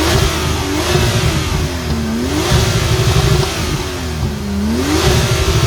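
Turbocharged Porsche flat-six on its stock exhaust revving: the revs climb, are held high, sag twice and pick back up.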